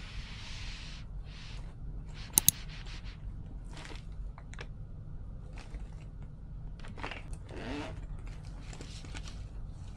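Handling sounds of a plush makeup pouch: rustling and a zipper being pulled open around seven to eight seconds in, over a steady low hum. Two sharp clicks close together about two and a half seconds in are the loudest sounds.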